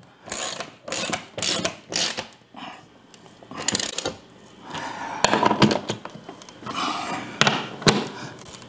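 Ratchet wrench clicking as a bolt is snugged down into a steel Sanus TV wall-mount bracket, with irregular metal clanks and a scrape of the bracket being handled.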